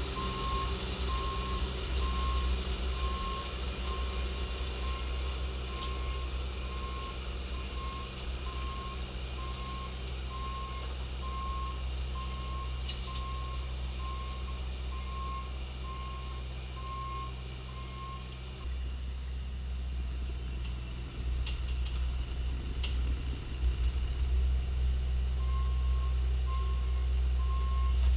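Bobcat T870 compact track loader's diesel engine running steadily while its backup alarm beeps at an even rhythm as it reverses. The beeping stops about two-thirds of the way through and starts again near the end.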